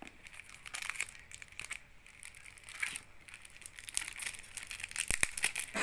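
Thin clear plastic sleeve crinkling and crackling as it is handled and pulled open around a stack of old banknotes, with a denser, louder run of crackles near the end.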